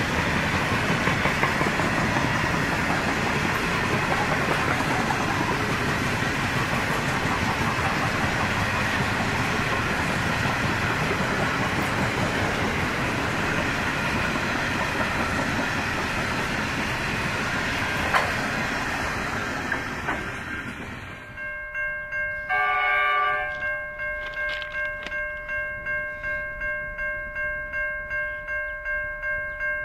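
Freight train grain hopper wagons rolling past with a steady rumble and wheel clatter. About twenty seconds in it cuts to level crossing warning bells ringing in an even pulse, about two rings a second.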